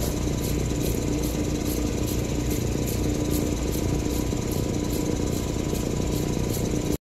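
Lapidary cabbing machine running steadily, its motor humming and diamond grinding wheels spinning with a light regular tick about two to three times a second. The stone is off the wheel, so no grinding is heard.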